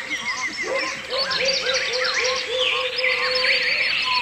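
Forest birds calling at once. A run of repeated low, arching notes, about three a second, sounds over many higher chirps and whistles.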